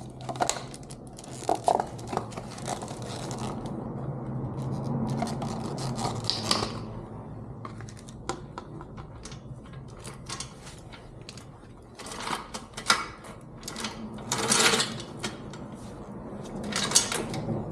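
Irregular metallic clicks, taps and scrapes as motorcycle sprocket and chain parts and hand tools are handled, with a busier run of clatter about twelve to fifteen seconds in.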